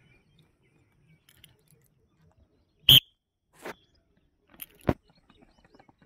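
Mostly quiet open air broken by a few sharp knocks, the loudest about three seconds in. Near the end come light, quick footfalls of runners on bare rock.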